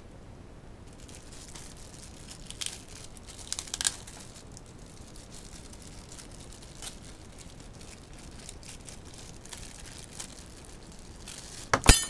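Clear plastic bag crinkling in short, scattered rustles as a phone is handled in it. A sharp click near the end is the loudest sound.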